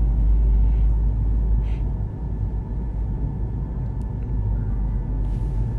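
Steady low rumble with a faint, constant hum above it, and no voice.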